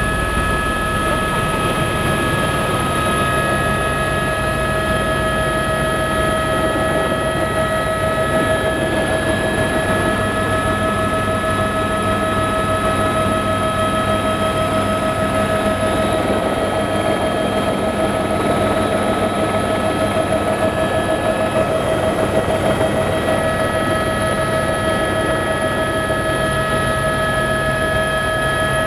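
Helicopter in flight heard from inside the cabin: a steady loud drone of engine and rotor, with several constant whining tones over it.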